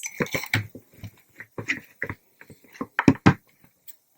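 Plastic toy pieces being handled and fitted together: a run of small clicks and knocks, dense in the first second, with the loudest pair of knocks about three seconds in.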